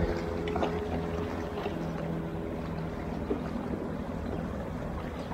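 Water lapping and sloshing against a fishing kayak's hull, with small knocks and a faint steady hum that fades out about halfway through.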